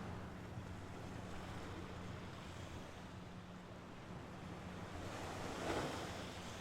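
Mediterranean Sea waves washing on the shore, a steady wash with one wave breaking louder a little before the end.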